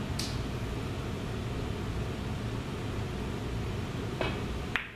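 Steady low room hum. A faint click comes just after the start and another about four seconds in, then near the end a sharp click as the pool cue's tip strikes the cue ball.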